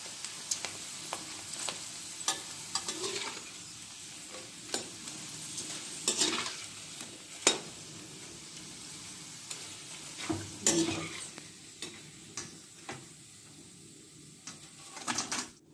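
Sun-dried rice-flour namkeen jalebi deep-frying in hot oil: a steady sizzle full of small crackles, with a few sharper clicks, cutting off suddenly near the end.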